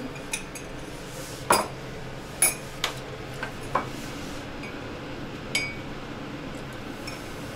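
Kitchen utensils and dishes clinking and knocking against each other while someone works at the counter and sink. There are about half a dozen separate sharp clinks, some with a short ring, and the loudest come about one and a half and two and a half seconds in.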